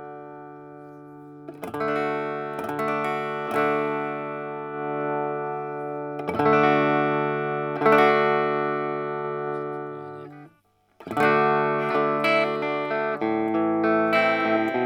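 Electric guitar played through a Bugera V5 tube amp in 1-watt mode: chords strummed and left to ring out, then stopped dead for a moment about two-thirds of the way through, followed by a busier run of picked chords and notes near the end.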